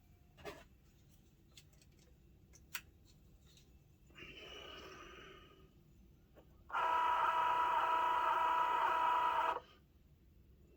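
A few light clicks, then a short whir, then a loud, steady whine of a small machine for about three seconds that stops suddenly.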